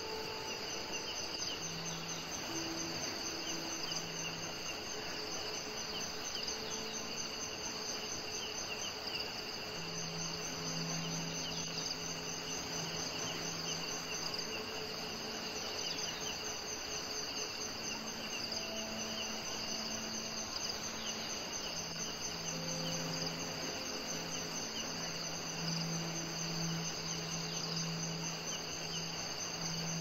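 A steady chorus of chirping insects, several trilling at different pitches, over an even background hiss. Faint low humming notes come and go.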